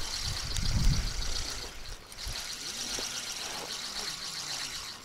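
Spinning reel being wound in against a hooked fish that is pulling: a steady fine whirring that pauses briefly about two seconds in and then goes on. Low rumbling handling noise in the first two seconds.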